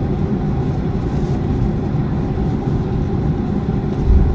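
Steady low rumble of a Boeing 737-400 heard from inside the cabin: its CFM56 engines running and the airframe rolling, with a brief low thump near the end.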